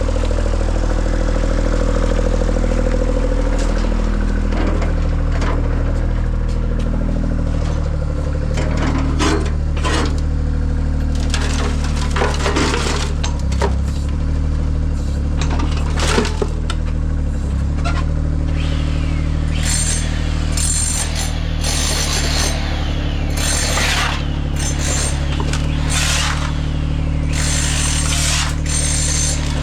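An engine running steadily, with scattered knocks and scraping over it and a run of short, noisy bursts in the second half.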